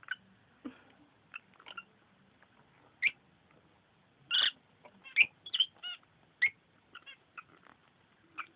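Rosy-faced lovebirds chirping and squeaking in short, scattered calls, loudest about halfway through.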